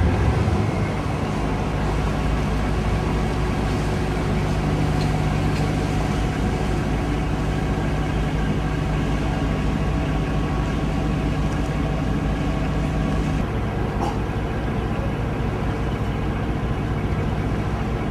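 Passenger ferry's engine running steadily underway, a low rumble with a steady hum that drops out about thirteen seconds in while the rumble goes on.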